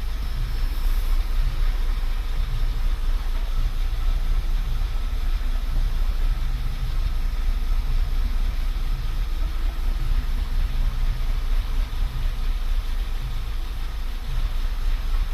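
Car engine idling unevenly, its low rumble broken by irregular pulses: a misfiring engine.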